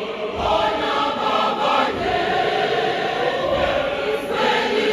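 Large church choir of many voices singing together.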